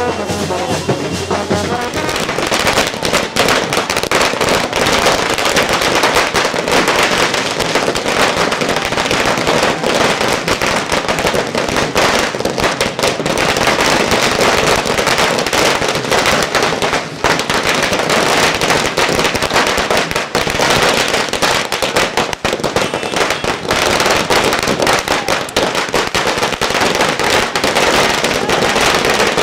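A brass wedding band plays for about the first two seconds. Then comes a loud, continuous barrage of firecracker strings going off on the ground, a dense crackle of rapid pops that lasts to the end.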